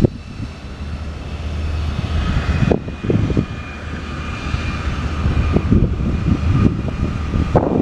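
Steady low engine drone with a faint whine, with gusty low buffeting over it.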